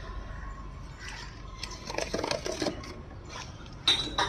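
Knocks, clicks and scrapes of objects being handled. They come in a cluster through the middle and a sharper pair of knocks near the end.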